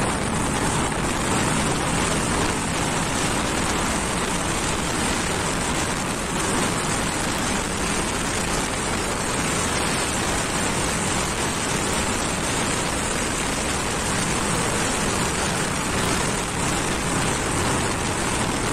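Steady wind rush on the microphone of a sport motorcycle cruising at about 90 km/h, mixed with road and traffic noise, with no clear engine note standing out.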